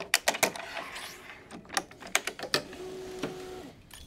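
Gamma 9900 ELS racquet stringing machine: a run of sharp clicks and clacks as the string clamps are worked, then about two-thirds of the way in the electronic tension head's motor runs with a steady whine for about a second as it pulls a main string to tension.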